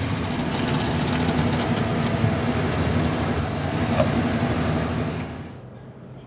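A van's wheelchair lift and power wheelchair running with a steady mechanical hum, with a light knock about four seconds in, as the wheelchair is loaded onto the lift platform. The hum drops away about five and a half seconds in.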